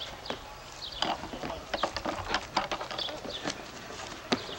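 Irregular clicks and knocks, a dozen or more scattered through, with a few brief high chirps of small birds in between.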